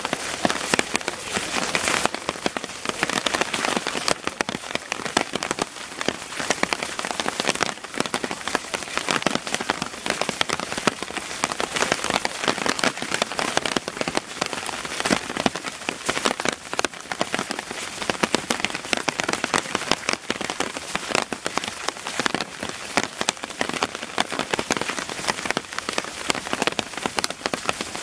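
Heavy rain falling, a steady dense hiss of rain with many individual drops striking close by.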